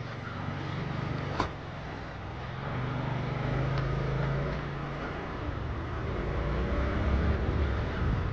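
Motor scooter's small engine running while riding, with road and street noise around it and a sharp click about a second and a half in.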